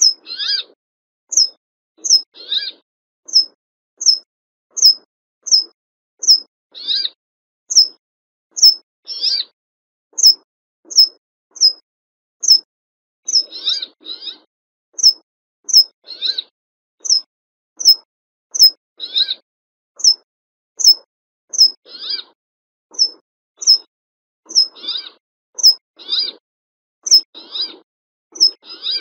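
Brambling calling: a steady run of short, high, downward-flicking notes about once every 0.7 seconds, with a lower, harsher call breaking in every two to three seconds.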